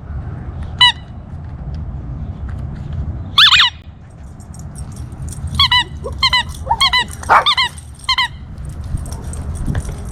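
About six short, high-pitched animal calls, spaced irregularly and loudest about three and a half seconds in, over a steady low rumble.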